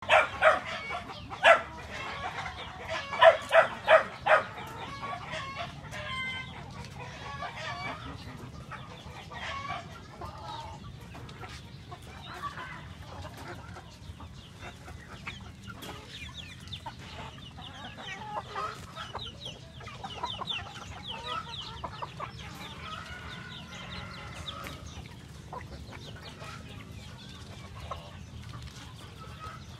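Filipino native chickens clucking and calling, with a run of loud, short, repeated calls in the first four seconds, then softer clucking and quick trills of notes throughout.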